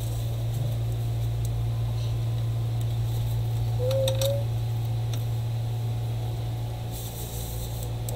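Steady low hum throughout. Over it comes faint rustling and small clicks from a tissue wiping oil off a phone's LCD panel and frame, with a brief rising squeak about four seconds in.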